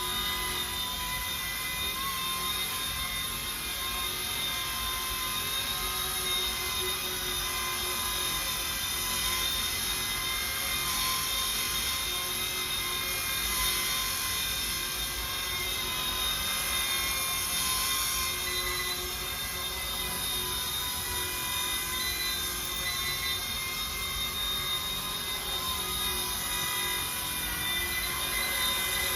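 Micro RC helicopter (RC ERA C186 mechanics) running steadily: a continuous high electric-motor whine with rotor hiss, its pitch holding nearly constant throughout.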